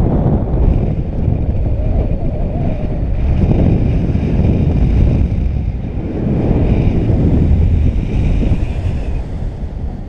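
Wind buffeting a harness-mounted action camera's microphone during paragliding flight: a loud, gusty rush that swells and eases every second or two.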